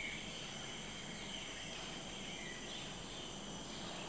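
Low, steady outdoor ambience with insects trilling continuously at a high pitch.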